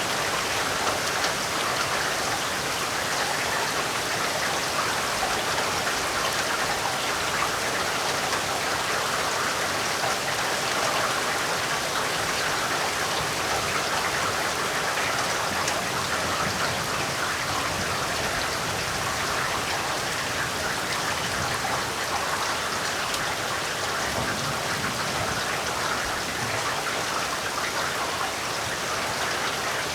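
Heavy rain falling steadily, an even dense hiss of drops with no breaks.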